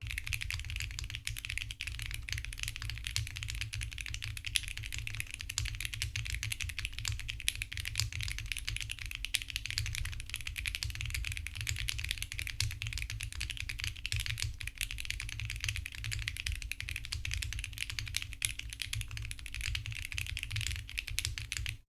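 Continuous typing on a mechanical keyboard fitted with Akko Creamy Purple Pro tactile switches, which are factory-lubricated and have long-pole stems: a dense, steady run of keystrokes. The typing breaks off briefly near the end.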